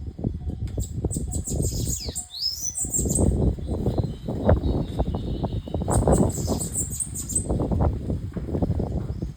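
A small bird fluttering its wings in rapid, continuous flurries, with high thin chirps and short pitch glides twice.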